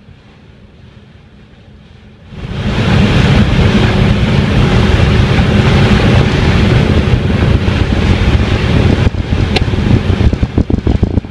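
Wind buffeting the microphone on the deck of a moving ferry: a faint steady rumble for about two seconds, then loud wind noise coming in suddenly, gusting unevenly near the end.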